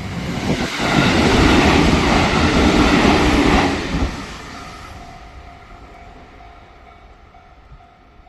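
An electric local train on the JR Tokaido Main Line passes close by, its wheels clattering over the rail joints. It is loud for about three seconds, then fades away. A level-crossing warning bell rings steadily underneath.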